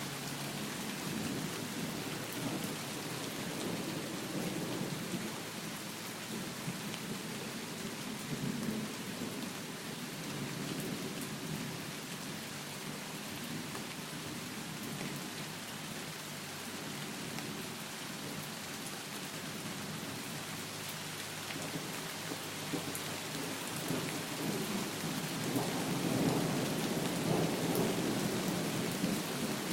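Heavy, steady rain falling, with a low rumble swelling up near the end.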